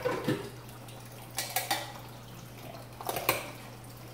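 Kitchen utensils clattering against cookware in three short bouts: at the start, about a second and a half in, and about three seconds in.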